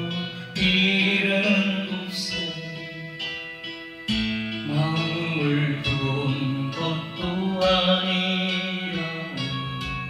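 Electronic keyboard playing the song's instrumental introduction: held chords over a steady bass note, with the chord changing every three to four seconds.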